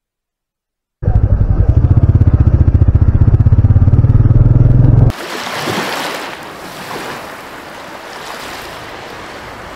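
After about a second of silence, a motorcycle engine runs loudly with a fast, even pulsing for about four seconds and stops abruptly. It gives way to the steady hiss of surf washing onto a beach.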